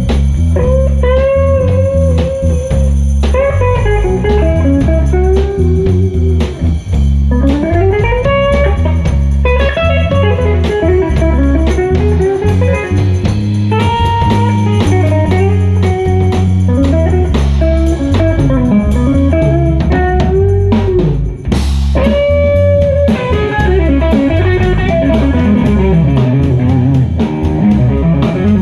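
A blues band playing live: an electric guitar leads with notes that bend up and down over bass guitar and a drum kit.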